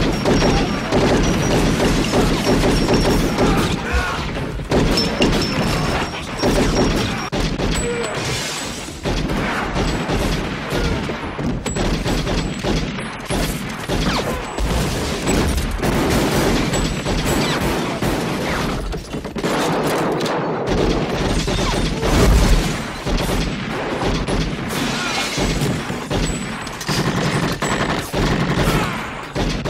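Movie gunfight gunfire: rapid pistol shots firing in long, overlapping volleys, with a louder bang about two-thirds of the way through.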